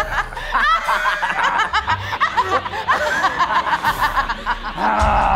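Several people laughing together in loud, villainous cackles, with music underneath.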